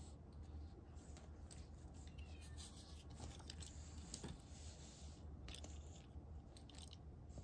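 Faint rustling and light crackly clicks of a feather wand toy being batted and mouthed by a cat on a shaggy rug, over a low steady hum.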